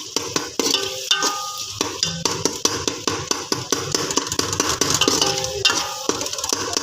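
Background music with a fast percussive beat and short melodic notes.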